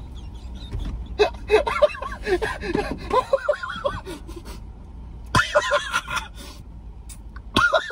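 Two men laughing hard: high-pitched, breathless fits of laughter that break off and start again sharply, with squeals around five and a half seconds in and again near the end.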